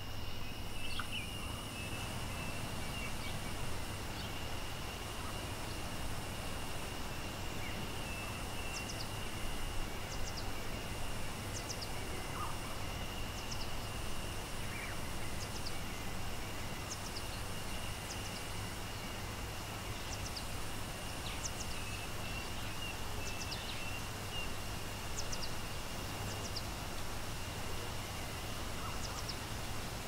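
Steady rush of falling water with forest ambience: birds giving short, falling chirps again and again from about eight seconds in, over a high buzz that comes and goes every couple of seconds.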